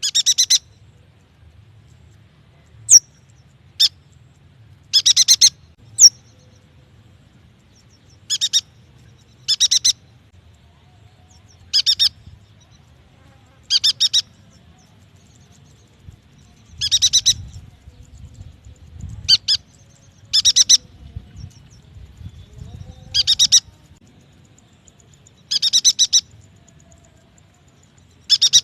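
A yuhina giving short, high, chattering call phrases about every two seconds, with a few thin single notes between them early on.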